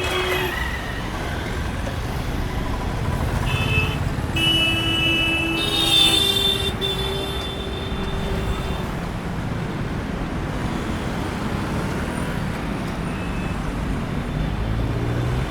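Busy city street traffic: a steady rumble of engines and tyres, with several car horns honking one after another in the middle, the loudest about six seconds in.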